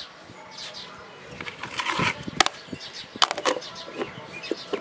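Plastic food-container lid being set on and its clip latches snapped shut: several sharp plastic clicks from about two seconds in, after some soft handling.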